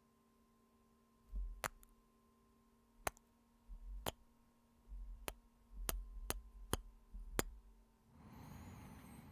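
Close-mic ASMR kisses: about eight sharp lip smacks spread over several seconds, most with a soft low thump from the lips pressing near the microphone. A soft breathy sound follows near the end.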